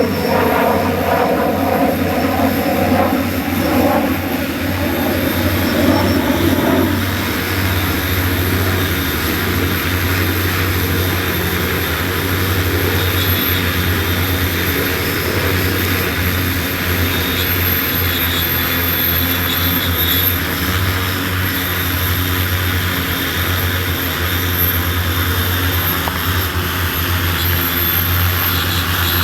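Propellers of a 15-litre agricultural spraying multirotor drone buzzing in flight. The pitch shifts for the first several seconds, then holds steady.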